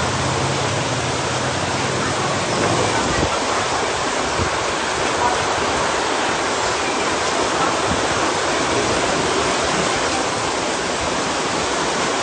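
Steady rushing of moving water from a reef aquarium's circulation, with a low hum underneath that stops about three seconds in.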